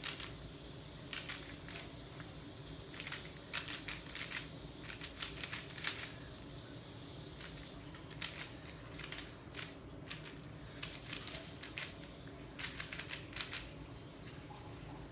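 Rubik's Cube layers being turned by hand: quick bursts of small plastic clicks, separated by short pauses.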